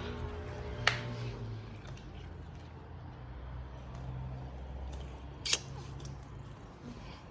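Two sharp clicks, about four and a half seconds apart, over a low steady hum.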